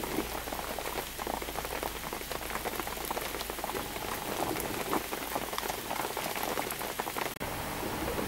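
Steady rain falling on floodwater, a dense hiss of many drops, broken by a brief cut-out about seven seconds in.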